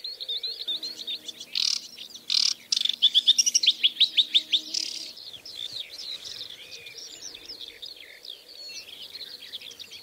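Aquatic warbler singing: chattering high phrases with a fast rattle of repeated notes near the middle.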